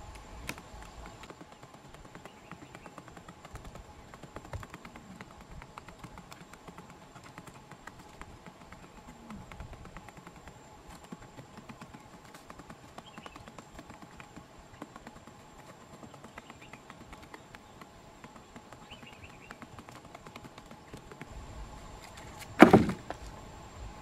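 Faint outdoor background with scattered light ticks and a few soft chirps, then, near the end, a single loud thump as the cardboard flap door of a spring-stick box trap snaps shut on a quail.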